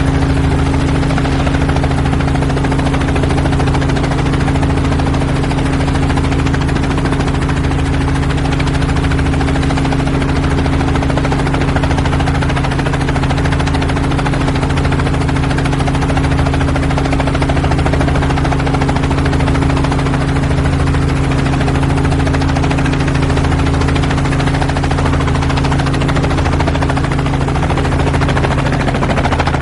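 Helicopter in flight heard from inside the cabin: a steady turbine and rotor drone with constant low hum tones and a slow, even low pulsing from the rotor.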